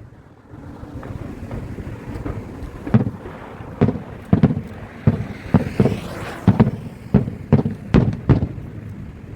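Aerial fireworks shells bursting: about a dozen sharp booms, roughly two a second, starting about three seconds in, over steady wind noise on the microphone.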